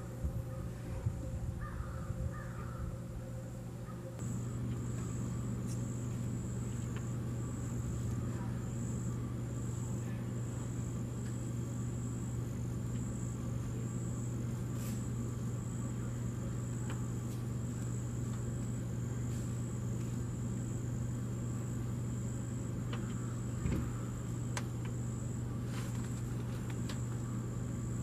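Outdoor ambience: insects chirping in a steady, pulsing high trill over a constant low hum, which grows louder about four seconds in. A few bird calls come in the first few seconds.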